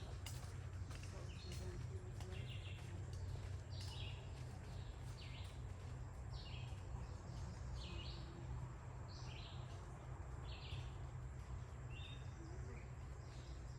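A bird repeating a short, high chirp about once a second, over a steady low background rumble.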